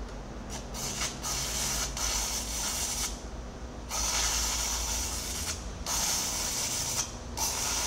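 Electric arc welding on a steel excavator bucket: the arc crackles and hisses in spurts of one to two seconds, broken by short pauses, over a steady low hum.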